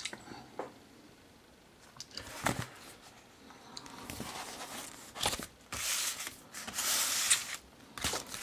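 Paper rustling and handling: a letter and a paper sticker album being moved about and picked up, in a few short rustles with light knocks, busiest in the second half.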